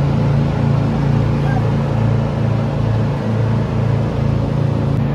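Boat engine running steadily: a low, even drone with a slow, regular swell in its level.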